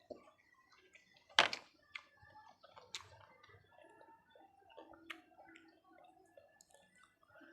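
Close-miked eating sounds: quiet chewing with a few sharp clicks, the loudest about a second and a half in.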